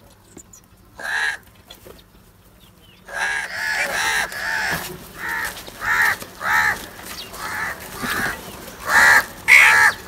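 House crows cawing: a single call about a second in, then from about three seconds a quick run of repeated caws from several birds, loudest near the end.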